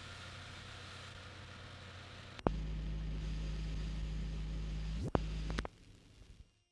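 Old film soundtrack noise: a steady hiss, then about two and a half seconds in a loud low steady hum starts with a click. The hum breaks with a click near five seconds, cuts off with another click soon after, and the track fades to silence.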